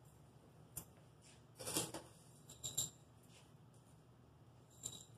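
Faint handling sounds of sand and a clear glass beaker: a few short clicks and rustles, the longest and loudest a brief gritty rustle just under two seconds in.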